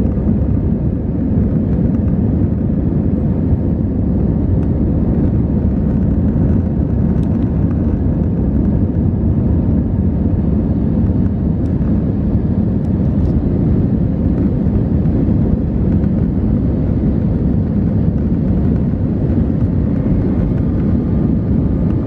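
Steady roar of an Airbus A320's CFM56-5B turbofan engines and rushing air, heard inside the cabin from a window seat over the wing during the climb.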